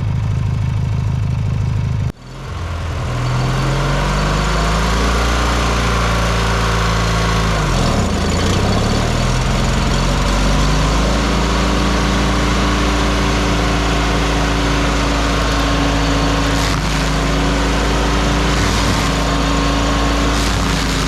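Vermeer 206 stump grinder's Kohler 20 hp engine running at work on a fir stump. A sudden break about two seconds in, then the engine speed climbs, sags briefly around eight seconds as it takes load, and recovers to a steady high speed.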